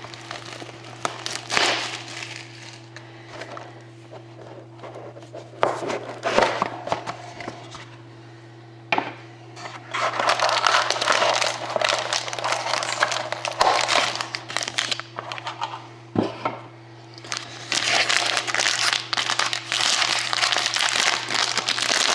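Plastic wrap being handled and pulled off a trading-card box, crinkling in irregular bursts, loudest in the second half, over a steady low hum.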